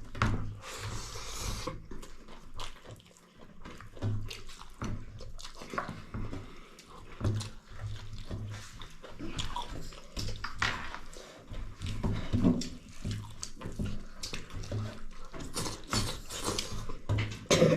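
Wet chewing, smacking and slurping of people eating a meal, with many small irregular clicks.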